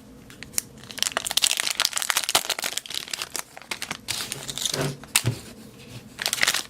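Wrapper of a baseball card pack being torn open and crinkled. The crackling runs in a long stretch, then comes again in a shorter burst near the end.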